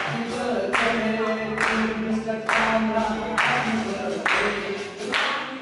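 Singing accompanied by a group of people clapping in time, a clap a little under every second over sustained sung notes.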